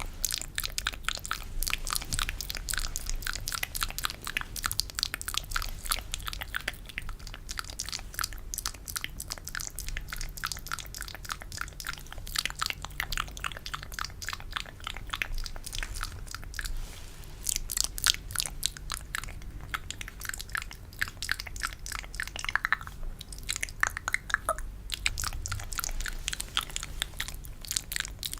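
Close-miked ASMR spit-painting mouth sounds: a dense run of wet, sticky clicks and smacks, with a short lull a little past halfway.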